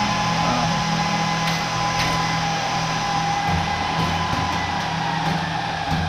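Dell PowerEdge R710 rack server's cooling fans running fast: a steady loud whir with a whine and a low hum. A few light clicks from the server's chassis being handled.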